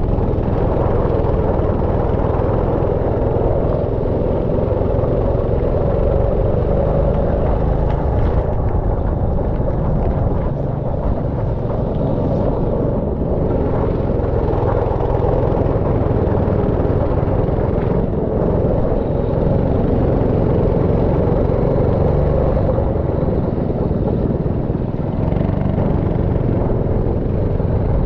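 Go-kart engine running steadily at racing speed, a continuous drone with a strong low rumble.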